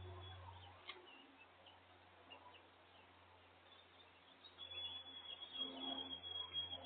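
Faint wild birdsong: scattered short high chirps, then a thin high note held for about two seconds near the end. A low hum fades out about a second in.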